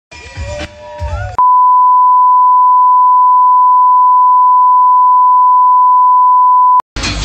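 A loud, steady beep tone at one pitch near 1 kHz, held for about five and a half seconds, switching on and off abruptly. It is an edited-in censor bleep laid over the MC's words into the microphone. A second or so of crowd noise comes before it, and music starts just as it ends.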